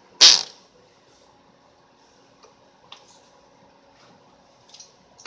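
Cox Tee Dee .010 glow engine being flicked over by its propeller for starting: two short, sharp bursts about five seconds apart, with a few faint ticks between, and the engine does not catch and keep running.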